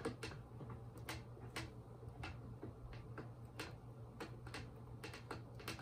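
Irregular small clicks and crackles of hands peeling black protective tape off the wire connectors at the scooter's stem, about a dozen over a few seconds, over a faint steady low hum.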